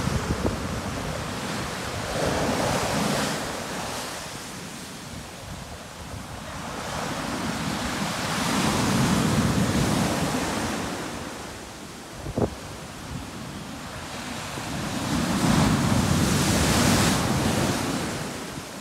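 Large North Sea waves breaking and rushing up the beach in three swelling surges, with wind buffeting the microphone. A brief knock sounds a little past halfway.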